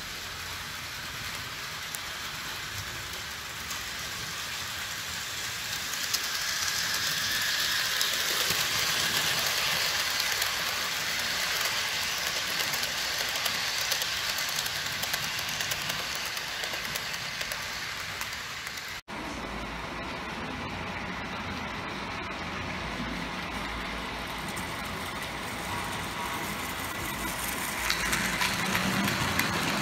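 Model trains running on the track: a steady hiss of small wheels on rail that grows louder as the cars pass close, then after an abrupt cut about two-thirds of the way in, another model train running past.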